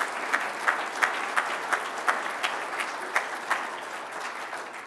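Audience applauding at the end of a talk, with a few sharp nearby claps standing out from the general clapping. The applause dies away near the end.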